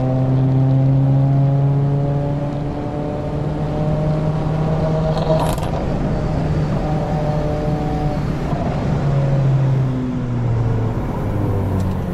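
2024 Subaru WRX's turbocharged flat-four engine running under load on track, its note climbing slowly with the revs and then dropping in pitch near the end. A brief sharp click comes about five and a half seconds in.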